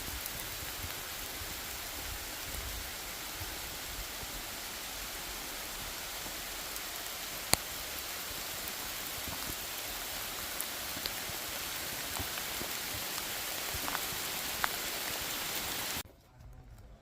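Steady rain falling, an even hiss with a few sharp ticks of drops, one louder about seven and a half seconds in. The hiss stops abruptly near the end.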